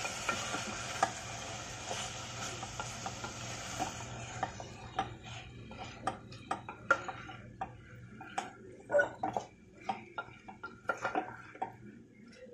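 Wooden spatula stirring chunks of cauliflower and potato through thick masala in a steel pot, with irregular scrapes and knocks against the pot's sides that grow busier in the second half. A steady hiss fades out about four seconds in.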